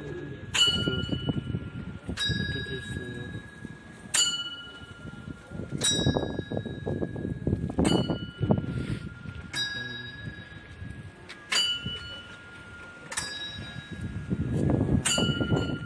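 Bells on large Buddhist prayer wheels, each struck by the wheel's arm as it turns: a clear ding about every 1.8 seconds, alternating between two pitches, over low rumbling background noise.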